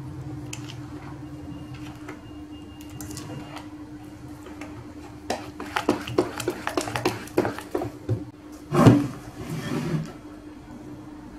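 A plastic spatula stirring thick semolina-and-milk batter in a stainless steel bowl, with soft wet squishing. From about five seconds in come quick clicks and taps against the bowl, then a louder thump just before nine seconds.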